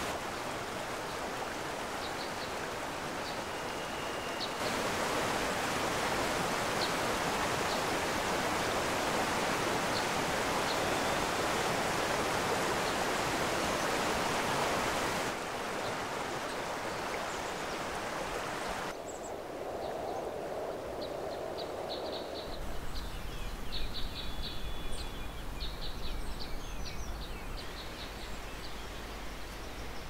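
Rushing river water, a steady noisy rush that changes abruptly in loudness several times. Small birds chirp faintly, a few near the start and more often in the last several seconds.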